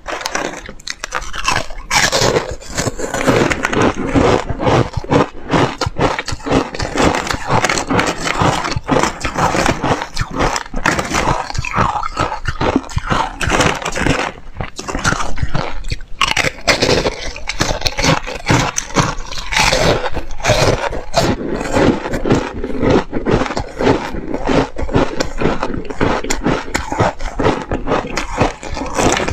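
Frozen ice discs being bitten and chewed close to a lapel microphone: a loud, rapid, unbroken run of crisp crunches.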